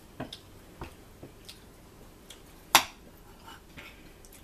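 Eating at a table: scattered light clicks of a fork against a plate of fries, with chewing, and one sharp clack a little past halfway.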